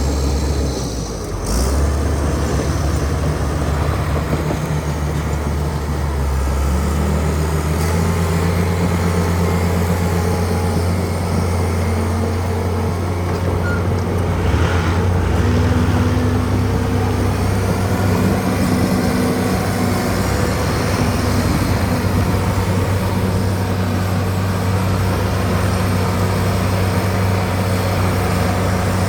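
Bulldozer's diesel engine running hard and steady, its pitch shifting a little now and then as the load changes.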